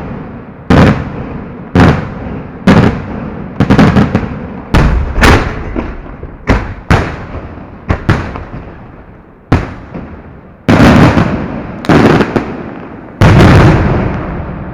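Fireworks display heard close up: a string of loud, sharp bangs at uneven spacing, about one a second, each trailing off in a rumbling echo. The last few, near the end, are longer and heavier.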